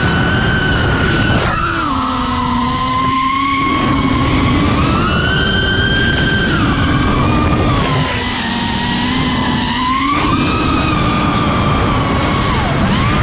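FPV quadcopter's electric motors and propellers whining loudly, the pitch sliding up and down as the throttle changes. The pitch drops sharply about a second and a half in, climbs again around five seconds, and falls back near eight seconds.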